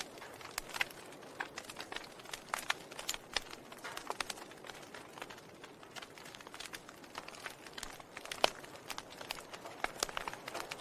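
Burning logs in a wood fire crackling: irregular sharp pops and snaps over a faint hiss, with one louder pop about eight seconds in.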